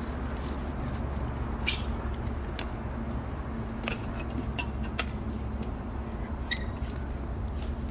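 Steady low rumble of an idling fire engine, with a few sharp clicks scattered through it, the loudest about a second and a half in.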